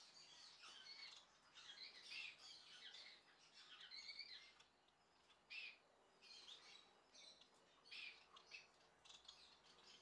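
Faint chirping and twittering of caged society finches (Bengalese finches): a busy run of short high calls for the first few seconds, then separate chirps every second or so.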